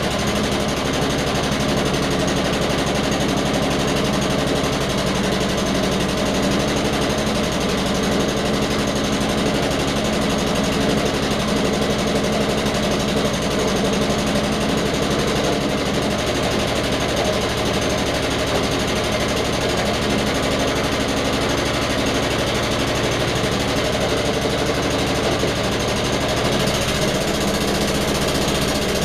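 Petrol engine of an old Suffolk Punch 43S lawnmower running steadily, the note changing slightly near the end.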